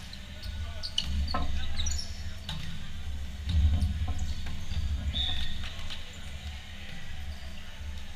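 Indoor volleyball rally: a handful of sharp slaps and knocks as the ball is hit and played, over a steady low hum in the hall, with one heavier thump about halfway through.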